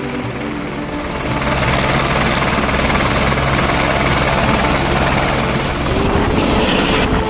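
Helicopter engine and rotor noise: a loud, steady rush with a low hum underneath, growing louder about a second in.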